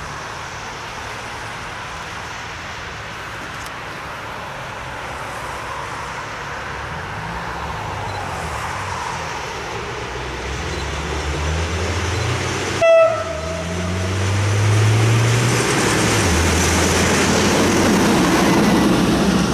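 SM42 (6Dg) diesel shunting locomotive running light, its diesel engine growing louder as it approaches and passes close by, the engine note rising and falling. It gives one short horn toot about two-thirds of the way in.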